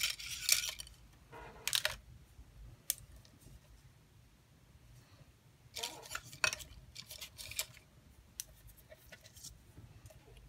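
Handling of a clear plastic packet and thin wood veneer shapes on paper: a few short crinkling rustles with light clicks and taps as the pieces are sorted and laid on the page.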